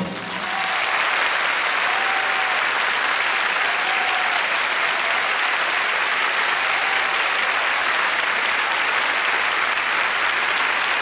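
Large theatre audience applauding, a dense, steady clapping that swells in the first second as the band's number ends and holds until the music starts again.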